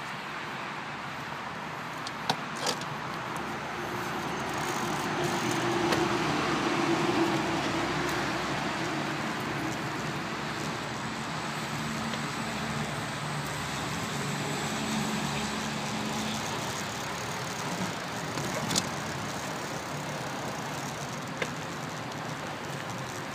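A car driving past, swelling and fading about four to eight seconds in, followed by a low engine hum, over steady rushing noise on a handlebar-mounted phone riding a bicycle. A few sharp clicks stand out.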